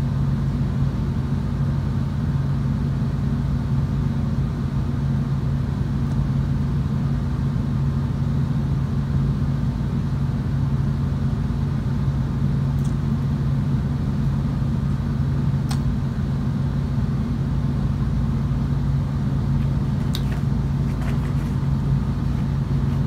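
A steady, loud low hum, with a few faint clicks.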